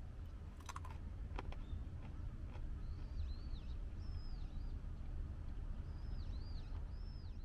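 A small bird chirping a run of short, high, arched notes in loose groups, starting about three seconds in, over a low steady rumble; a couple of faint clicks come near the start.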